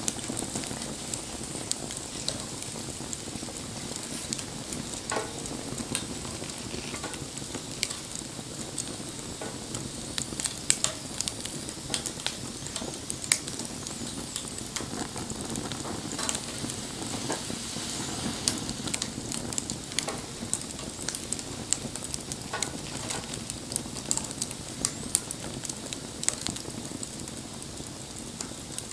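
Wood fire burning with a steady hiss and frequent irregular crackles and sharp pops.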